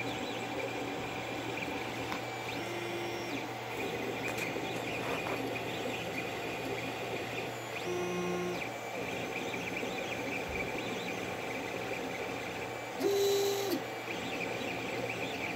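Creality CR-10 3D printer printing: a steady mechanical whir from the printer, broken by short pitched whines as the stepper motors make quick moves, three times, the loudest near the end.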